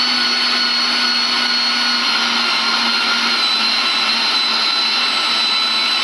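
Kenwood PRO 1400 electric meat grinder's motor running at speed: a steady high whine over a low hum.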